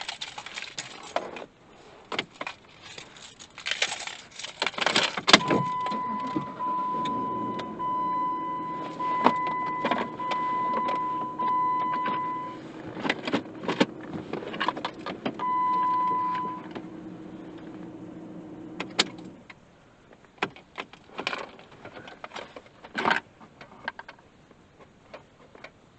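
Clicks and plastic rattles of a factory car radio and dash trim being pulled out and handled. After about five seconds a steady hum starts and runs until about nineteen seconds in. Over it, an electronic beeping tone sounds in runs for several seconds, stops, and comes back briefly. Scattered clicks of handling follow.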